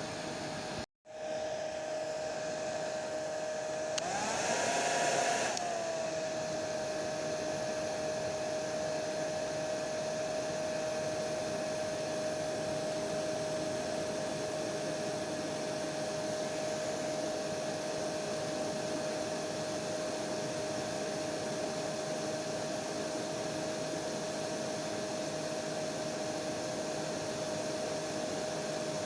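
Hair dryer (blow dryer) running with a steady whirring hiss and a steady whine. The sound cuts out for a split second about a second in. At about four seconds it briefly grows louder and the whine rises slightly, then it settles back to the steady run.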